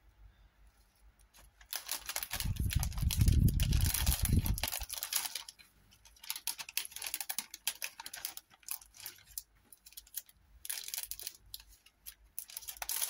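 Plastic craft packet crinkling and rustling as it is handled, in several bouts, with low bumps during the loudest stretch about two to five seconds in.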